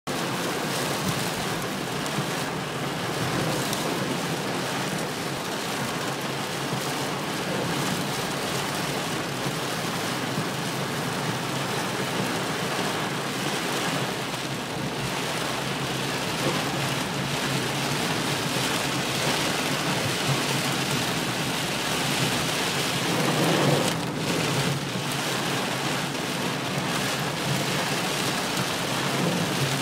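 Heavy storm rain pelting a car's windscreen and roof, heard from inside the car as a steady rushing noise. It swells briefly about 23 seconds in.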